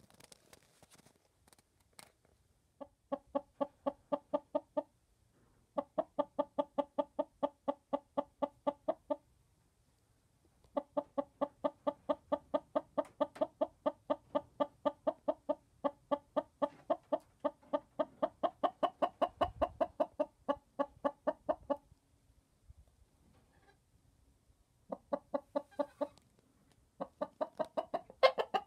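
Hen clucking in fast, even runs of low clucks, about four to five a second, some runs a couple of seconds long and one about ten seconds, with short pauses between them; the steady murmur of a hen settled on her nest in the laying box.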